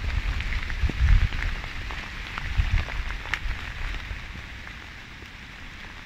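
Steady rain falling, with many small raindrop ticks. A low rumble swells and falls through the first three seconds, and the sound grows quieter toward the end.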